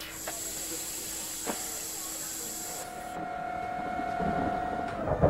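Airliner cabin overhead air vent (gasper) hissing as it is turned open, with a click about a second and a half in and a low steady cabin hum beneath. The hiss stops about three seconds in, and a steady whining tone follows, growing louder toward the end.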